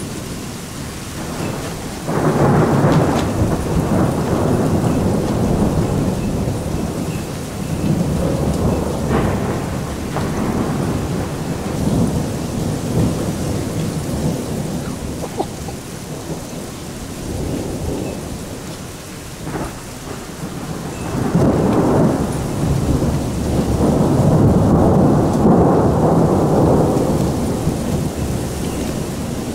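Thunder rolling over steady rain. One long rumble starts suddenly about two seconds in and rolls on for several seconds; a second builds about two-thirds of the way through and peaks near the end.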